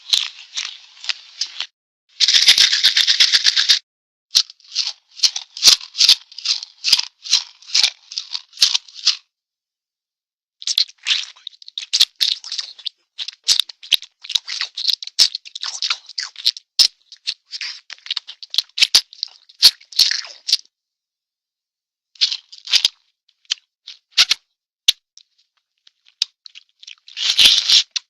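Cartoon sound effects: runs of rapid rattling clicks in bursts of a few seconds, broken by abrupt silent gaps. They sound thin, with little bass, as if heard over a telephone.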